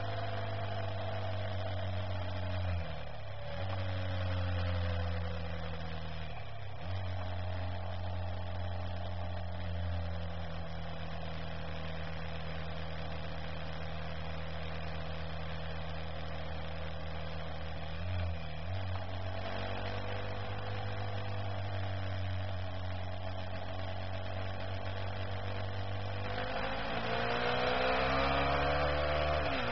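Engine of the vehicle carrying the camera, running steadily under way, its pitch dipping briefly four times as gears are changed, and rising and getting louder near the end as it accelerates.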